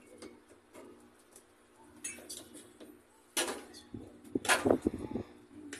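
Tableware clatter: a fork working through spaghetti on a ceramic plate, with a few sharper knocks and clinks, the loudest about three and a half and about four and a half seconds in.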